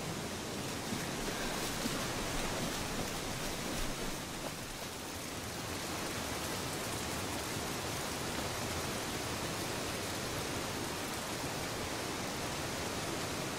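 Steady rushing water of a stream and waterfall, an even hiss with no breaks.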